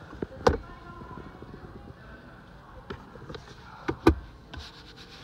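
A few sharp knocks and clicks of handling noise as the camera is moved around inside a car's cabin, the loudest about half a second in and another pair near the end.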